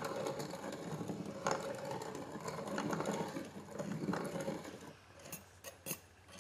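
Hand-cranked piston ring filer grinding the end of a top compression ring to open up its end gap, the crank turned in a steady run for about five seconds. A few sharp clicks follow near the end.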